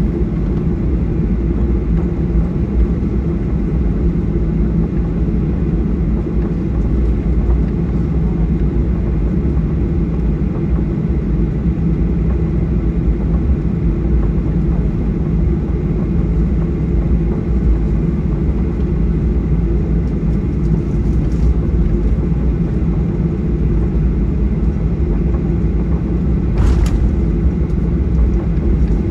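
Steady cabin noise of a Boeing 737-800 heard from a passenger seat: a constant drone of its CFM56-7B turbofan engines and airflow, low and unchanging. Near the end a brief sharp, higher sound cuts through once.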